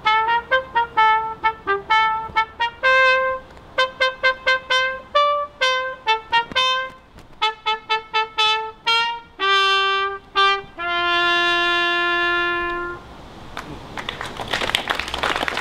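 A solo brass instrument plays a short tune of separate, detached notes and ends on a long held note. Applause follows near the end.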